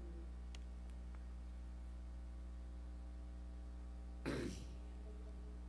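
A man clears his throat once, briefly, about four seconds in, over a steady low electrical hum.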